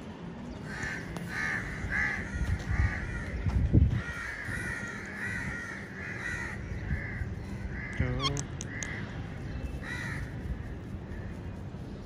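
Ringneck parrot giving a long run of repeated calls, about two a second, with one steeply rising call about eight seconds in.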